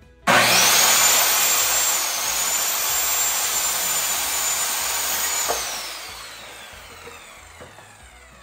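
Electric saw cutting a 2x4 to length. The motor starts suddenly with a high whine and runs steadily for about five seconds, then winds down with a falling whine once switched off.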